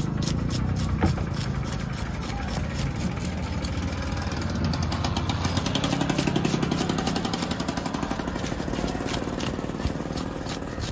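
An engine running steadily with an even, rapid pulse, with a sharp click about a second in.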